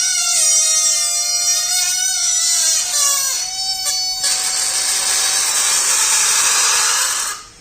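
Air let out of a rubber balloon: the stretched neck squeals in wavering pitches for about three seconds, then the air rushes out as a steady hiss that stops abruptly near the end.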